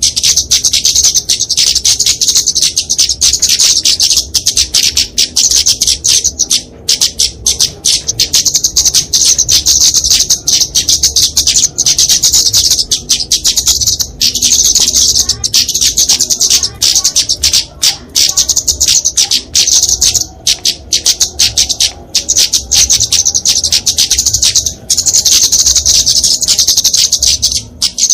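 Flowerpecker (kemade, Dicaeum) giving its agitated fighting call: a dense, unbroken stream of high, sharp, rapid chips and twitters with no pauses. It is the aggressive call used to provoke rival birds and lure small birds in.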